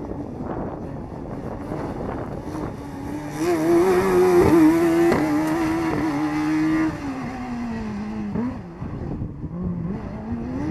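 Formula SAE race car's engine running hard around a tight cone course, the revs rising and falling with the throttle. It is loudest for a few seconds in the middle, then the pitch sags and climbs again near the end.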